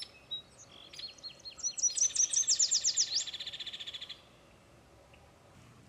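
Songbird singing: a few short whistled notes, then a fast run of clear down-slurred notes over a buzzy trill, stopping about four seconds in.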